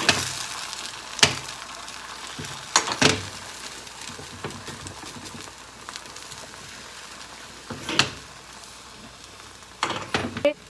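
Thin egg omelette sizzling in an oiled frying pan on low heat, the hiss slowly fading. A few sharp clicks and taps break through it, with a quick cluster near the end.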